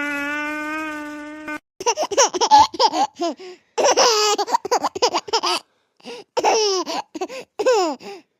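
Young child laughing in three bouts of short, high-pitched bursts, after a long drawn-out call of 'Papa'.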